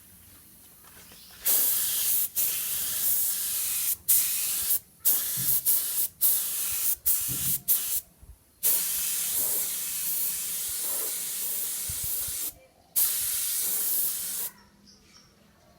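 Spray paint hissing from the nozzle in a run of bursts, some brief and some several seconds long, with short breaks between them.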